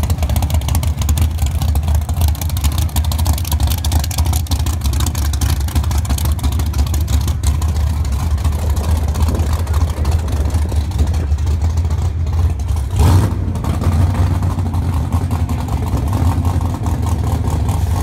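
Drag racing car engines running at low revs, with a steady deep, uneven beat. There is a brief louder burst about 13 seconds in.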